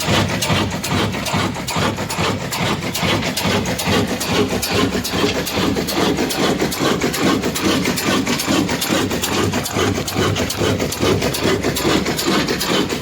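Old heavy black diesel engine running steadily, with an even beat of about five knocks a second.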